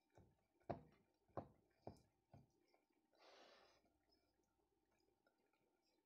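Chef's knife chopping raisins on a wooden cutting board: about five sharp knocks of the blade on the board in the first two and a half seconds, then a brief soft hiss about three seconds in.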